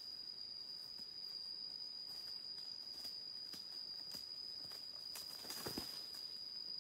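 Steady high-pitched insect drone, with soft crackles of red junglefowl stepping and scratching in dry bamboo leaf litter, and a louder rustle about five and a half seconds in.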